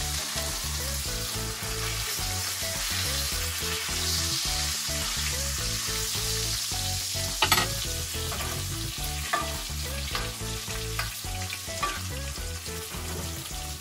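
Beef sizzling as it fries in a pan, nearly done, with a steady hiss and a few sharp clicks, the loudest about seven and a half seconds in.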